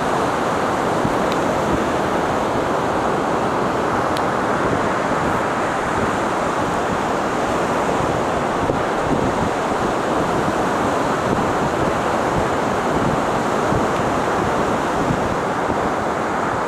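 Steady rushing noise of surf and wind, with wind buffeting the microphone.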